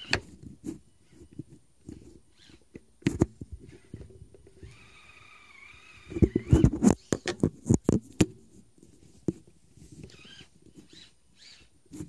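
Electric motor and gearbox of a Kyosho Blizzard RC snowcat whining in short bursts that waver in pitch as it is driven, the longest about five seconds in. Sharp knocks and crackles run throughout, loudest in a cluster from about six to eight seconds.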